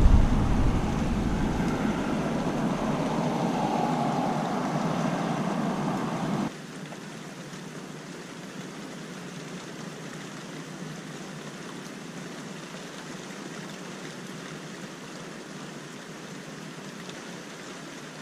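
Thunder rumbling and slowly fading over the first six seconds, then cut off abruptly, leaving a steady, quieter hiss.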